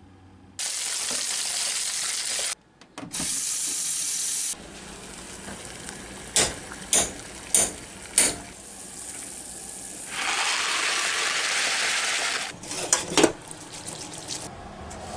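Water running in separate bursts, then four light clinks of a metal spoon against a saucepan of boiling macaroni, then a rush of water as the cooked macaroni is poured off into a stainless-steel colander in the sink, ending in a few metal clatters.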